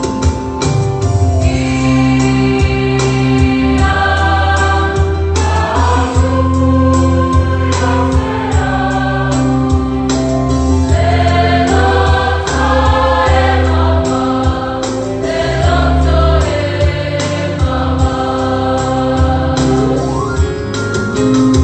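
A large choir of many voices singing a slow, hymn-like song together in sustained held notes over a steady low bass.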